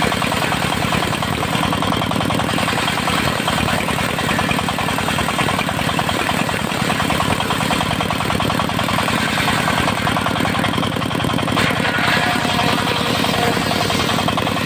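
Engine of a circular-saw sawmill running steadily at constant speed, with a fast, even firing beat.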